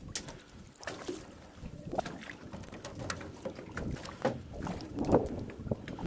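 A wet gill net being hauled by hand over the bow of a small boat: irregular small splashes, drips and knocks of the mesh and catch against the hull.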